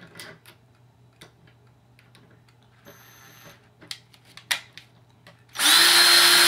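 Power drill running steadily for about a second near the end, driving a screw, after a few light clicks and taps.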